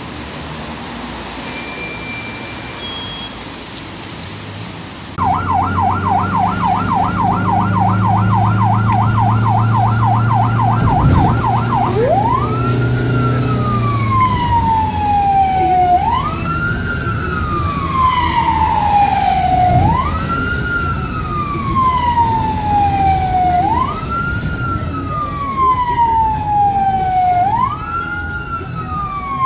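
Electronic siren of a 2015 Fiat Ducato ambulance, heard from inside the cab. After a few seconds of quieter street noise, it starts a fast yelp of quick up-and-down sweeps several times a second over a low steady hum, then switches about seven seconds later to a slow wail, each cycle rising sharply and falling away over about four seconds.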